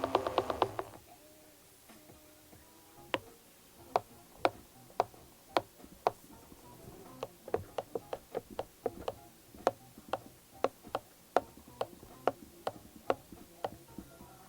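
Inboard M1 electric skateboard hub motor winding down with a falling whine and rapid clicking that stops about a second in. After a pause come sharp separate clicks, irregular and about one to two a second: the clicking/crackle fault in the hub motor.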